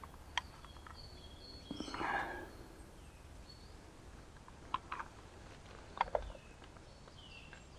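Quiet woodland ambience with faint high bird chirps, a brief soft rustle about two seconds in, and a few small sharp clicks from handling the camera and loupe.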